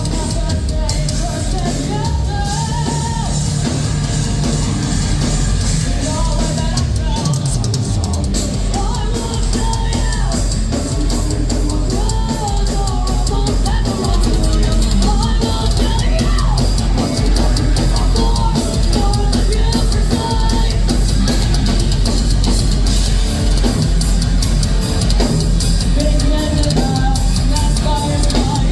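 A heavy metal band playing live: pounding drum kit with bass drum, dense guitars and bass, and a singer's voice over the top, growing a little louder about halfway through.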